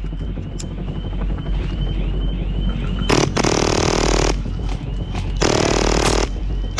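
HPA-powered Action Army AAP-01 airsoft gun firing on full auto, a fast steady rattle of shots, with louder, harsher bursts about three seconds and five and a half seconds in.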